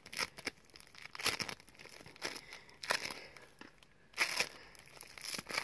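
Floam, a modelling foam packed with tiny beads, squeezed and pulled apart in the fingers, giving soft, irregular crackling and crinkling.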